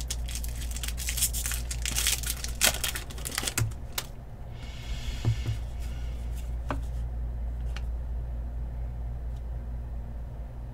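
Foil wrapper of an Upper Deck Spider-Man Metal Universe trading-card pack crinkling and tearing as it is ripped open, for about four seconds. This is followed by a short swish about five seconds in and a few soft clicks as the cards come out and are thumbed through, over a steady low hum.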